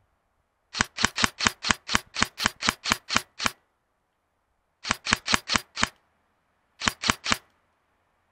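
Airsoft gun firing rapid single shots, each a sharp snap, in three strings: a long one of about a dozen, then about six, then four.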